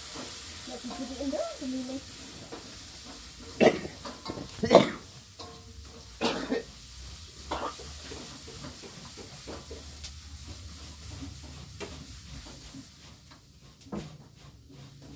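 Chicken nuggets frying in hot oil in a metal pan, sizzling steadily. A spatula knocks and scrapes against the pan several times, loudest about five seconds in.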